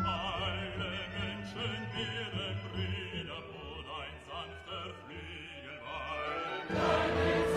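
Classical music: a singing voice with strong vibrato over sustained orchestral accompaniment. A louder, fuller passage comes in near the end.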